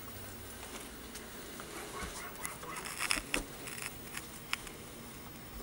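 Quiet room noise with a few faint, scattered taps and rustles, as of people moving about and handling things.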